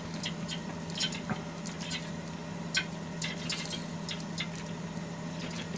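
Steady low hum from an IH cooktop's fish grill, with light crackles and clicks scattered through it as food is turned with chopsticks on the grill's metal wire rack.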